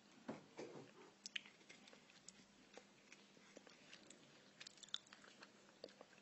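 A cat biting and chewing a piece of food held out by hand: faint, irregular clicks of its teeth.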